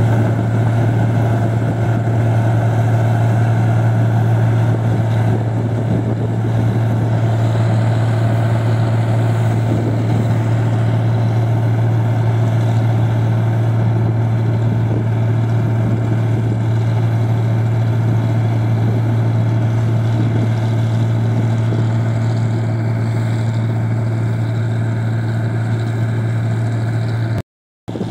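New Holland 1545 combine harvester running steadily while harvesting rice: a constant engine drone with a strong low hum and a wash of machinery noise. The sound drops out completely for about half a second near the end.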